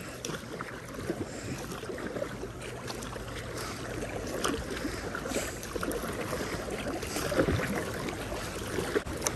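Double-bladed kayak paddle strokes splashing into the water from a surf ski, about one a second, over a steady wash of water along the hull.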